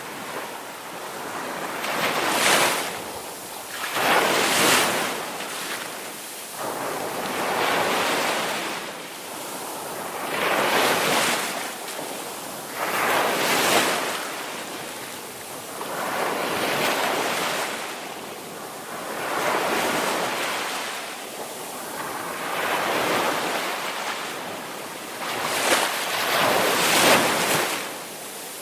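Ocean surf breaking on a beach, the rush of each wave swelling and falling away in repeated surges about every three seconds.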